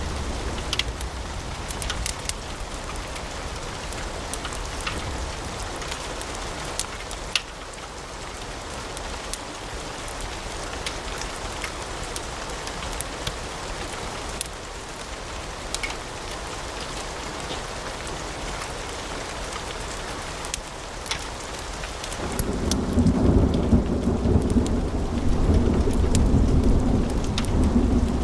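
Wood fire in a fireplace crackling: a steady hiss with scattered sharp pops. About 22 s in it turns louder, with a low rumbling roar of flames.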